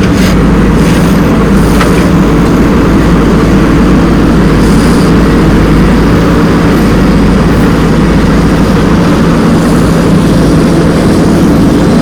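Heavy diesel machinery running steadily as soil is loaded: the engines of a JCB backhoe loader and a tractor, with a low, even drone.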